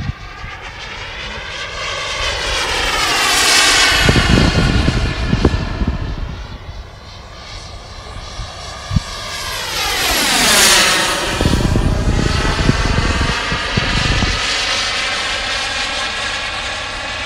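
Turbine engine of a large RC model Eurofighter Typhoon jet flying past twice, its whine rising as it approaches and dropping sharply in pitch as it passes, loudest about three and a half and ten and a half seconds in. A deep rumble follows each pass.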